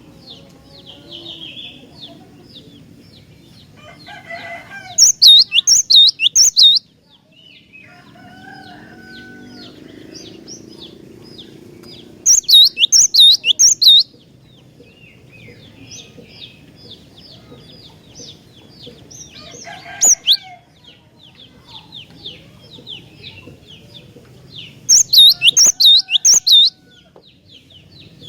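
Cinereous tit (glatik batu) singing. Three times it gives a loud burst of five or six quick repeated notes, and once a single loud note, over a steady faint chatter of rapid high notes.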